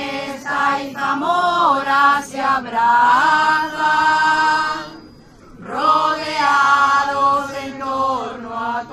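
A group of men and women singing a religious hymn together from song sheets, with no instruments. They sing two long phrases, with a short pause for breath about five seconds in.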